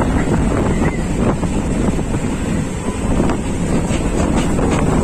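Steady wind buffeting the microphone, a dense low rumble with no clear pitch.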